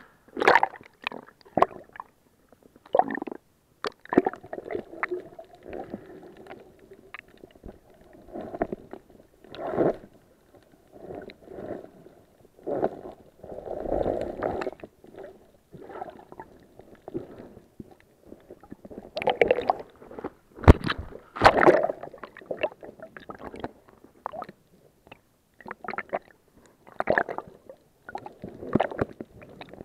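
Muffled water sloshing and gurgling around an action camera in its waterproof housing as it moves through the water, with irregular knocks and bumps on the case, the loudest a couple of sharp knocks about two-thirds of the way in.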